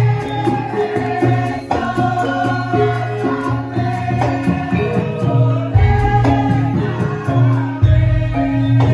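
Javanese lengger dance music: a high, wavering voice holds long notes over drum strokes and a steady low accompaniment, with deep gong-like booms about six and eight seconds in.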